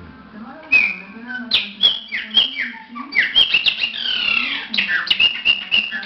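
Chopi blackbird (pássaro-preto) singing: a loud, fast run of clear whistled notes, many sliding downward, mixed with sharp clicks. The song starts about a second in and keeps going.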